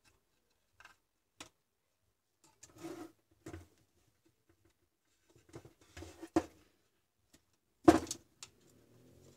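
An opened UPS unit's case being handled and turned over on a workbench: scattered knocks, clicks and rattles, with the loudest thump near the end as it is set back down.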